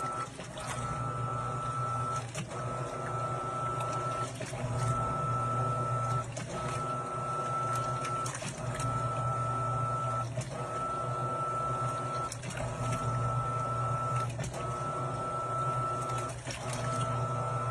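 Washing machine motor running a wash cycle with a steady hum and a high whine that stops with a click about every two seconds as the drum reverses direction. The machine is overloaded with clothes.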